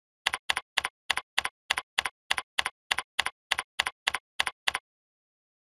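Computer keyboard being typed on: about seventeen even keystrokes at three to four a second, each a quick double click of key press and release, stopping about a second before the end.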